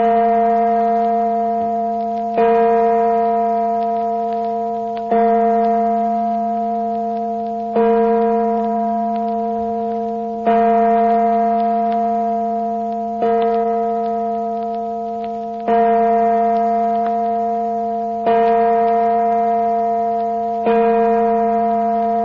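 A single church bell tolling slowly, nine strokes about two and a half seconds apart, each ringing on and fading before the next.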